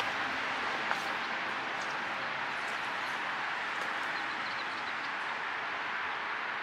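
Steady, even hiss of distant highway traffic.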